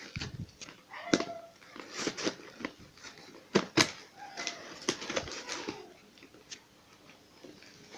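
Handling of a kettle's cardboard and plastic packaging: rustling and scraping with irregular sharp knocks and clicks, the loudest about a second in and around three and a half seconds in, settling to quieter rustling near the end.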